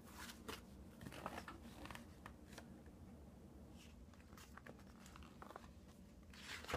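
Faint rustling and scattered light taps of a paper picture book being handled as it is held up and moved, with a slightly louder rustle near the end.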